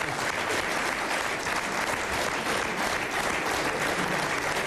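Studio audience applauding: steady, dense clapping throughout.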